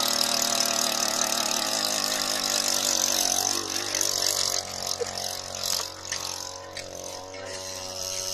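An engine running steadily, somewhat quieter from a little past halfway.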